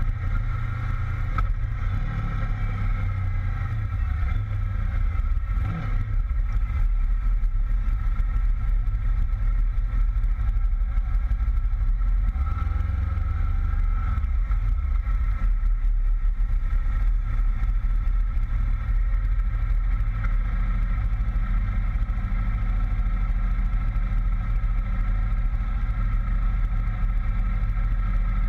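Honda VFR800 V-Tec's V4 engine running at low speed, heard from a camera on the bike, as a steady low rumble; the note shifts a few times in the first six seconds and then holds even.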